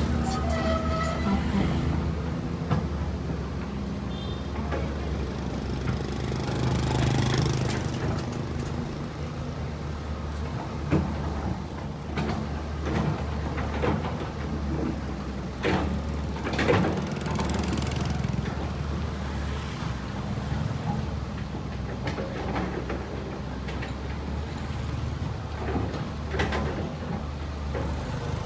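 Excavator diesel engine running steadily. It works up under load a couple of times, with scattered sharp knocks and clanks.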